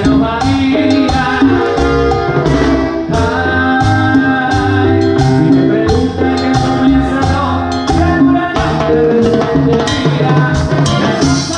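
Live Latin band music, with timbales and a cymbal played with sticks over the full band.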